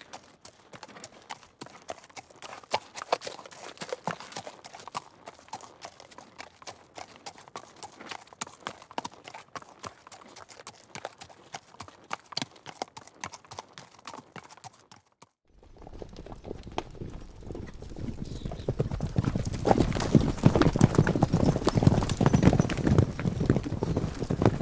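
Horse hooves clip-clopping in a quick, irregular run of hoofbeats. About fifteen seconds in it breaks off and gives way to louder, denser hoofbeats with a deeper rumble that keep building.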